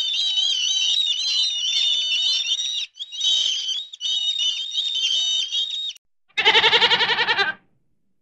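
A crowd of chicks peeping continuously in a dense, high-pitched chorus, breaking off briefly twice. Near the end comes a single quavering bleat about a second long from a young animal.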